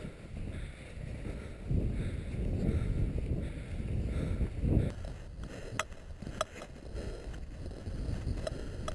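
Wind buffeting the microphone in uneven low rumbling gusts, with a few faint clicks in the second half.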